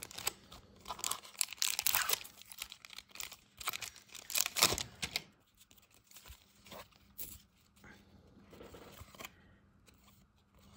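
A silver foil trading-card pack (1992-93 Upper Deck hockey) being torn down the side and crinkled open, with the loudest tear about four and a half seconds in. After that, the quieter rustle and light clicks of the cards being slid out and handled.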